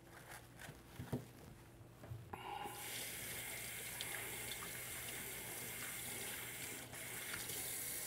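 Kitchen tap running steadily into a sink, starting about two and a half seconds in after a few light clicks and knocks.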